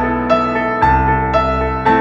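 Gentle instrumental background music: piano or electric piano playing notes about twice a second over a sustained bass.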